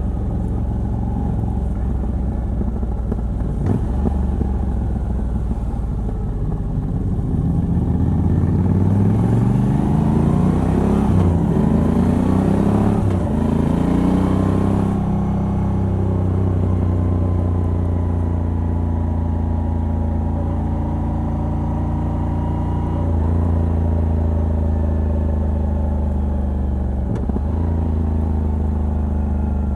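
Moto Guzzi V85TT's air-cooled transverse V-twin, fitted with a decat pipe on the stock exhaust, accelerating up through the gears about a third of the way in, with a short dip in pitch at each shift. It then cruises at steady revs, with wind rushing past during the hardest pull.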